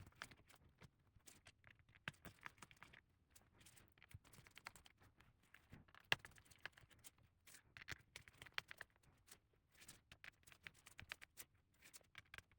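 Faint, irregular small clicks and ticks from a precision screwdriver working tiny screws out of a metal plate inside an iPad, with one sharper click about six seconds in.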